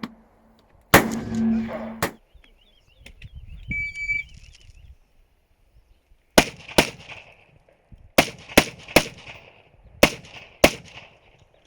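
Semi-automatic rifle firing single shots on a practical shooting stage, about nine in all. There are two shots in the first two seconds, a pause of about four seconds, then quick pairs and a fast run of three.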